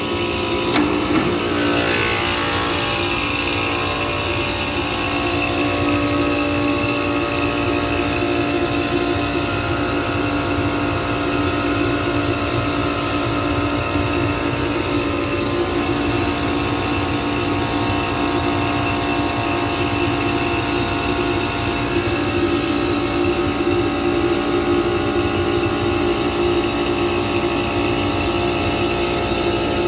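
Copeland scroll compressor unit starting up after its high-pressure switch is reset. The pitch glides for the first couple of seconds, then settles into a steady running tone.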